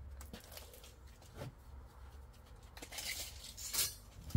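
Faint handling noises at black steel gas pipe clamped in a pipe threading machine while the cut point is marked: light ticks and scrapes, with a brief louder scrape a little before the end and a sharp click right at the end. The machine is not running.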